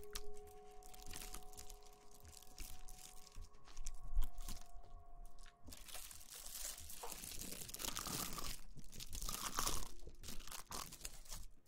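Close-miked crinkling and rustling, made as ASMR trigger sounds. It grows louder and denser from about six seconds in.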